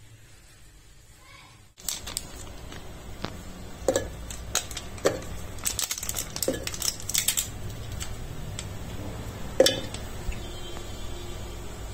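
Pieces of chocolate bar dropped into a stainless-steel mixer-grinder jar, landing as a string of irregular knocks and clinks with a short metallic ring. They start about two seconds in.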